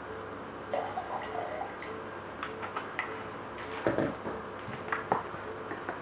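Vinegar poured from a plastic bottle into a plastic mop bucket, splashing in uneven spurts from about a second in, with a couple of louder splashes in the second half.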